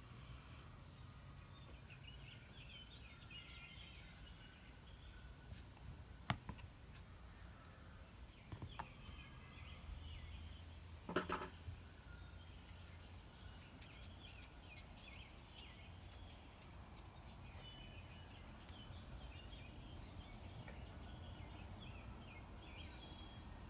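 Quiet background with faint, scattered bird chirps and a low hum, broken by a few soft taps about a third and halfway through.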